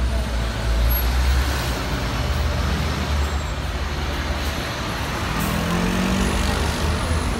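City buses and a minibus running close by in street traffic: a steady deep engine rumble over general road noise, with an engine note rising briefly about five seconds in.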